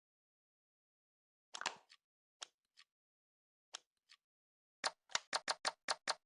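Toy gun mechanism clicking: three pairs of sharp clicks, each a loud click followed by a fainter one, then from about five seconds in a fast run of clicks, about six or seven a second.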